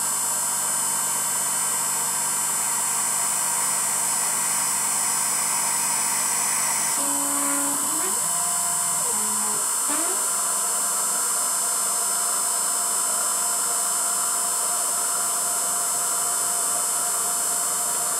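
Emco F1 CNC milling machine spindle running with a steady high whine as a 6 mm spotting drill cuts into a cast iron backplate. About seven seconds in the sound changes and short rising and falling motor tones follow as the drill retracts and the table moves to the next hole.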